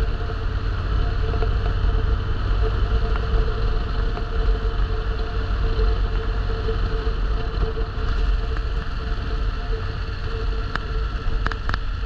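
Steady road and engine noise of a moving vehicle: a deep, even rumble with a constant hum over it.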